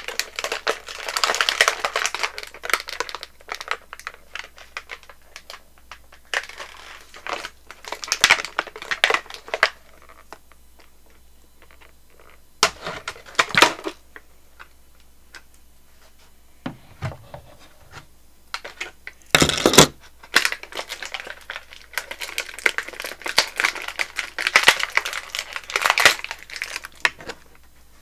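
Clear plastic doll packaging crinkling and rustling as it is handled and pulled open, in irregular bursts with quiet pauses between them. There is a sharp, louder crackle a little past two-thirds of the way through.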